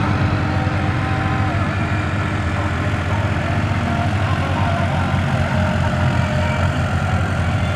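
A tractor's diesel engine running steadily and loudly, with an even low firing beat.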